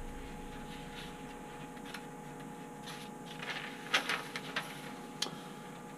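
Newsprint pages rustling as a newspaper sheet is lifted and turned, in a few short bursts from about three seconds in, with a sharp click near the end, over a faint steady hum.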